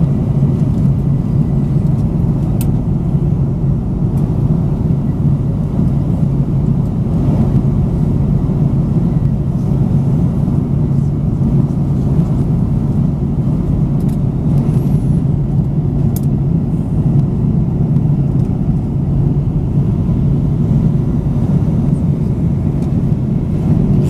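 Steady jet-airliner cabin noise at cruise, heard from a window seat beside a Rolls-Royce turbofan engine: a loud, even low drone with rushing air. There are a couple of faint clicks.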